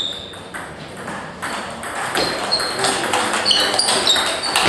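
Table tennis ball being hit back and forth, clicking off the bats and the table. Each hit is a sharp click with a short high ping, one right at the start and several more close together from about halfway through.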